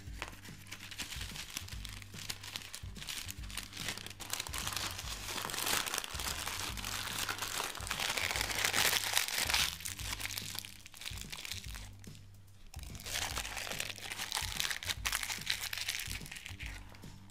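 Baking paper crinkling and rustling as it is folded and pressed around a ball of homemade play dough, loudest in the middle and again after a short lull. Background music with a low repeating bass line runs underneath.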